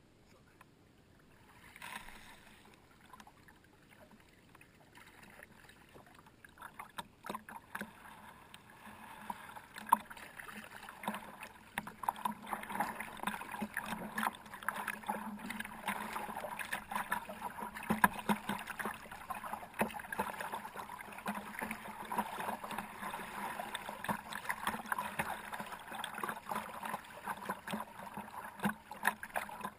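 Kayak being paddled through the water: splashing and rippling along the hull, dense with small crackling clicks, building up after several near-quiet seconds.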